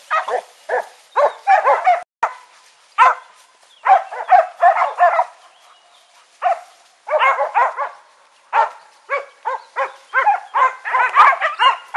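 Boar-hunting dogs barking in quick volleys of repeated barks, with short pauses between volleys.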